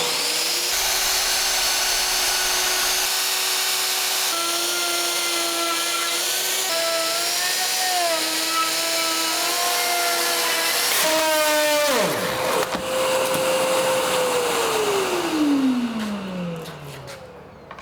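Wood router running while cutting, its whine dipping slightly in pitch under load. About eleven seconds in, its brass guide bushing rattles loose with a sudden clatter. The router is then switched off and its motor winds down in a long falling whine.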